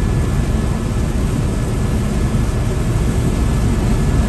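Steady low drone of a helicopter's rotor and engine, heard from inside the cabin in flight.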